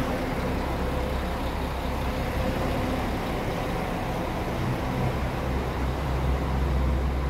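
Steady low rumble of bus engines and road traffic, with a faint engine hum.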